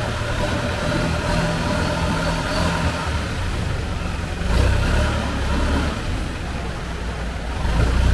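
Engine of a small wooden canal boat running under way, a steady low hum that swells louder about four and a half seconds in and again near the end.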